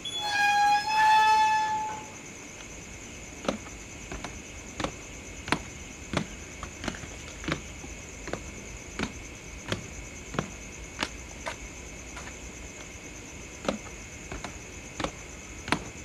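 A loud two-note pitched sound in the first two seconds, then steady footsteps climbing concrete stairs, about one step every 0.7 seconds. A steady high-pitched hum runs underneath.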